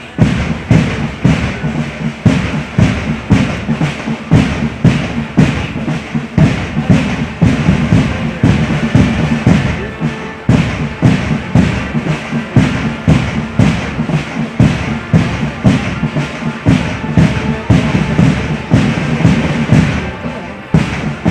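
Marching drums beating a steady march rhythm, about two beats a second.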